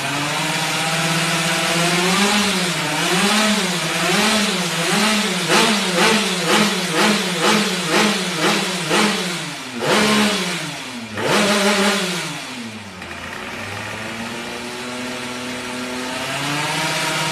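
Road-race-tuned Suzuki FIZ R two-stroke single-cylinder engine idling, then blipped in a run of short, regular throttle stabs about two a second, followed by two longer revs before it drops back to idle.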